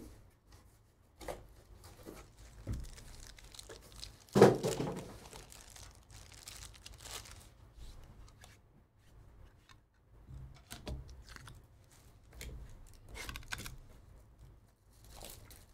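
Cardboard boxes and wrapping of sealed trading-card boxes being handled and torn open: scattered rustles, crinkles and tears, with one louder thump about four and a half seconds in.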